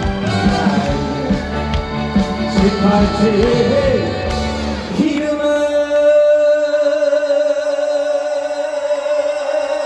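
Live trot song ending, with the band playing under the singing. About five seconds in, the band drops away and one long steady final note is held.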